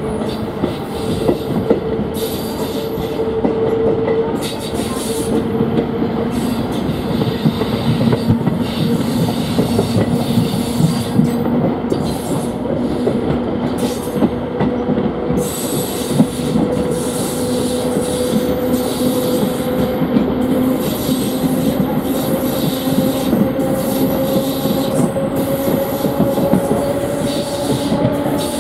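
Train passing close by for the whole stretch, its wheels clattering over the rail joints. Under the clatter runs a steady whine that rises slowly in pitch through the second half.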